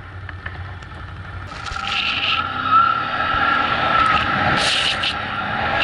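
ATV engine running as a quad drives through snow. It gets louder about a second and a half in, with a wavering drone and a few short bursts of hiss over it.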